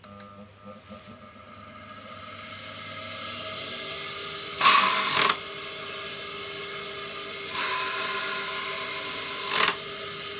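Sewing machine clutch motor running up to speed after a few clicks, its whir building over about four seconds and then holding steady. Two louder surges of whirring come through it, a short one midway and a longer one near the end.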